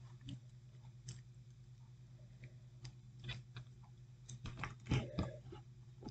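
Faint scattered clicks and taps of a plastic action figure being handled, with a quicker, louder cluster about five seconds in, over a low steady hum.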